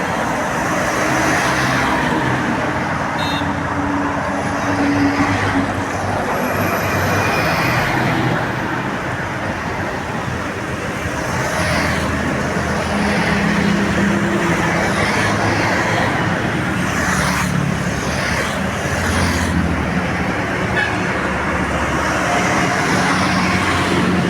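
Heavy road traffic with buses and other vehicles passing close by: engines running and tyres on the road, swelling and fading as each goes past, with a brief horn toot.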